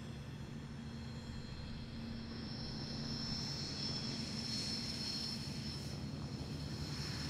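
Airplane engines running, a low rumble with a steady high whine that grows louder from about two seconds in as the aircraft draws nearer.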